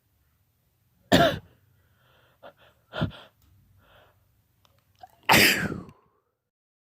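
A man's held-back sneezes: three sharp bursts about two seconds apart, the last the longest, with short quick breaths between them.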